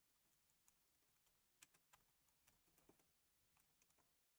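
Very faint computer keyboard typing: scattered, irregular key clicks against near silence.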